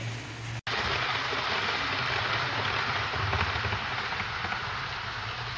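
Model train running along the track: a steady rushing of wheels and motor over a low hum, broken by a brief dropout about half a second in.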